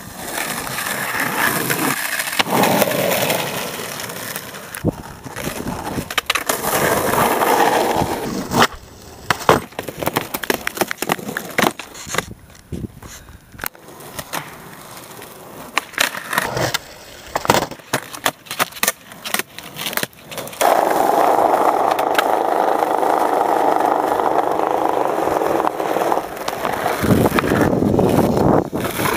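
Skateboard wheels rolling over concrete and asphalt, broken by sharp clacks of the board popping and landing tricks. A longer, steady roll runs through the last third.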